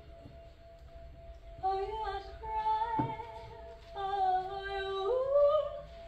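A woman singing long held notes without words, the last one gliding upward, over the steady ring of a singing bowl. For the first second and a half only the bowl is heard, then the voice comes in.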